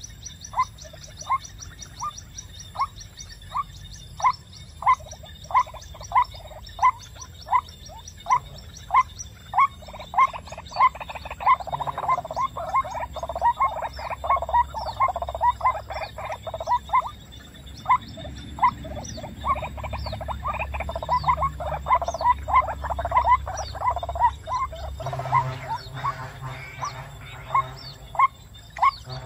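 White-breasted waterhen calling: a short note repeated about one and a half times a second, thickening in the middle into a denser run of overlapping calls.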